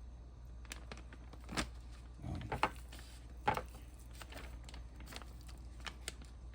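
Light knocks and clicks, a handful of separate strikes with a short rustle in the middle, from raw chicken pieces being dredged in flour in a bowl and knocking against it.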